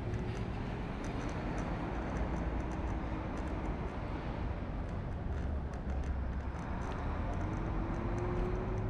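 Steady city street traffic noise heard from a moving scooter, with a heavy low rumble. A faint engine whine rises in pitch from about seven seconds in.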